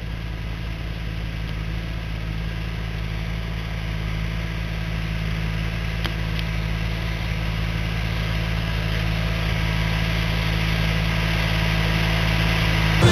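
Tractor engine running at a steady speed, growing gradually louder as the tractor approaches across a worked field.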